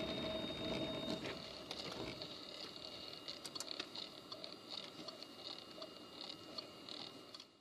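Dashcam recording from inside a car slowing to a stop: a steady hum of engine and road noise cuts out about a second in, leaving quieter cabin noise with light scattered ticks and taps.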